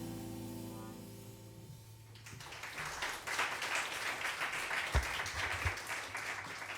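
The last sustained chord of a live jazz quartet of trumpet, piano, bass and drums rings and fades away. About two seconds in, audience applause starts and continues, with a single low thump near the middle.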